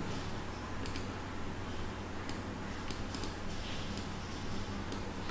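Steady low electrical hum from the recording setup, with about eight scattered light clicks and ticks across the few seconds.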